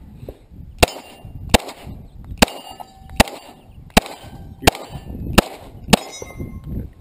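Eight pistol shots, about one every three-quarters of a second, fired at steel plate targets, with the plates clanging as the hits land.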